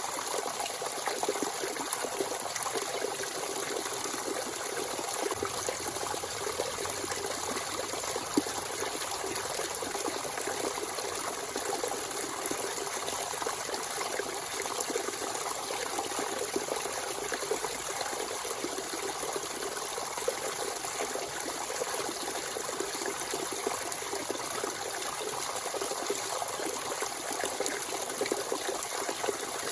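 Natural spring water flowing and trickling steadily, with one brief click about eight seconds in.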